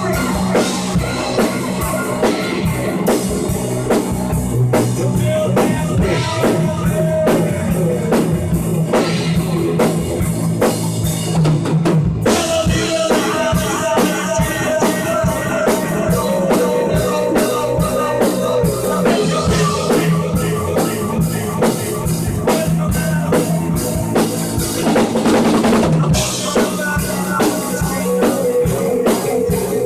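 Improvised rock jam: a drum kit played steadily and loudly under held guitar chords, recorded with poor sound quality.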